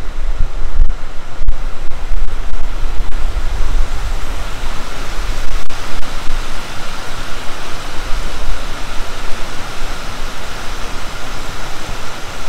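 Steady rush of mixed liquor (activated sludge) flowing through a wastewater treatment plant's splitter box, under a fluttering low rumble of wind buffeting the microphone. A faint, steady high-pitched whine runs underneath.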